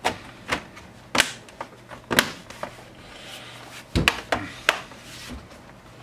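Plastic bottom cover of an Asus PU551L laptop being pressed onto the chassis and snapped into place: a series of sharp plastic clicks and knocks at uneven intervals, the loudest about two and four seconds in.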